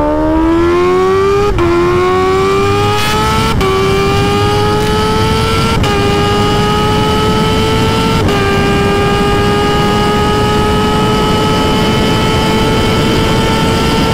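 Kawasaki Ninja H2's supercharged 998cc inline-four pulling hard under full acceleration, heard from on board: the engine note climbs through each gear and drops sharply at four quick upshifts roughly two seconds apart, then climbs slowly for the last six seconds. Wind rush sits steadily underneath.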